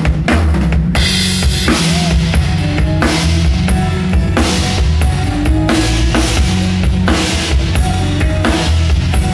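A live band plays acoustic guitars over a full drum kit, with bass drum, snare and cymbal hits in a steady beat.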